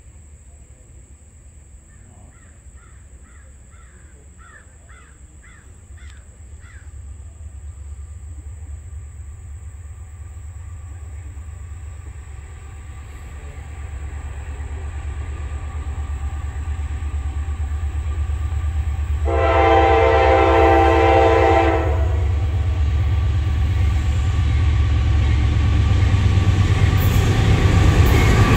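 Approaching Norfolk Southern diesel freight train: a low rumble grows steadily louder as the locomotives near. About two-thirds of the way in, the lead locomotive's horn sounds one chord-like blast of about two and a half seconds.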